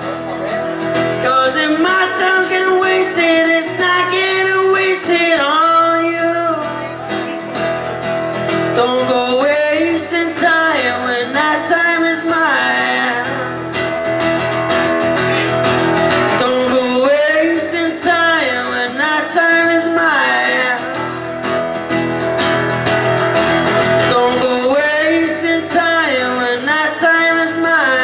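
A man singing a song while strumming his own acoustic guitar, played live.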